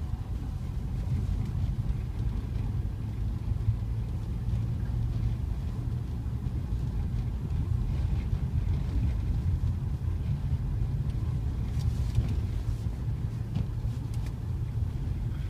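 Toyota RAV4 driving along a snow-covered road, heard from inside the cabin: a steady low rumble of engine and road noise, with a few faint ticks about twelve seconds in.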